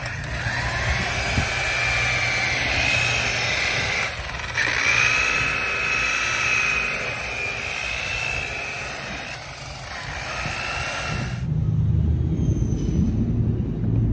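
Corded electric rotary polisher with a wool pad running against a plastic headlight lens, buffing out the wet-sanding marks. Its motor whine wavers in pitch as it is worked over the lens, dips briefly about four seconds in, then cuts off near the end.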